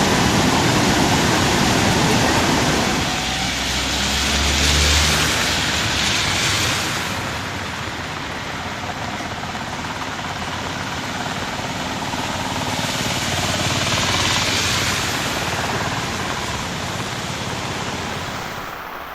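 Steady loud rush of water from the swollen, flooding river or heavy rain. A low rumble, like a vehicle passing, swells briefly about four to six seconds in.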